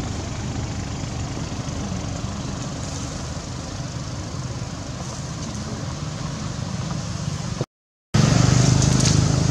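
Steady low rumble of road traffic. It cuts out completely for about half a second near the end, then comes back louder.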